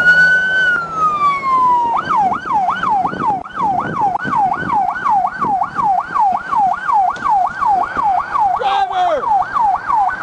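Police car siren sounding loudly: a slow wail for about two seconds, then switching to a fast yelp that sweeps up and down about three times a second. A brief lower falling tone cuts in near the end.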